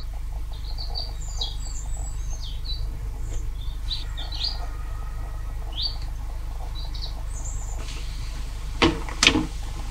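Small birds chirping in short, high calls throughout, over a steady low background hum. Near the end, two sharp knocks.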